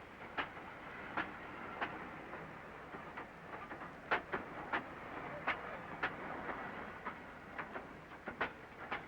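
Flying Scotsman's steam-hauled train running, a steady noise with sharp clicks at irregular intervals.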